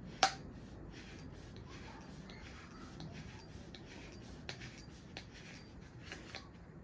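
A Knipex plastic pipe cutter turned slowly, with light pressure, round a plastic toilet connector pipe, its blade scraping as it scores into the plastic. The sound is quiet and rasping, with a sharp click about a quarter second in and a few fainter clicks later on.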